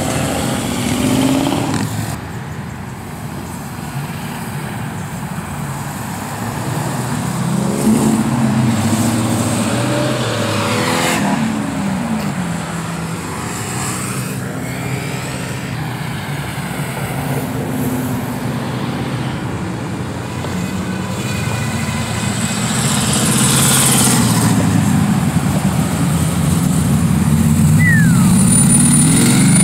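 A string of cars driving past on a road, their engines pulling away one after another with rising and falling engine notes. The traffic gets louder toward the end.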